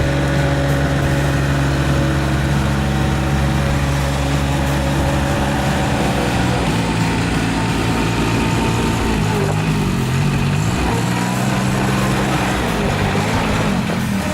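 Small 1.1-litre three-cylinder diesel engine of a skid steer mini loader running, steady at first, then rising and falling in pitch from about halfway through as the engine speed and load change.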